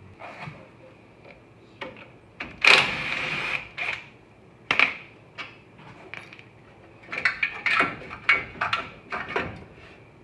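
Tools being handled: sharp metallic clanks and knocks, with a loud sliding rasp about three seconds in, like a tool drawer being pulled, and a quick run of clatters near the end.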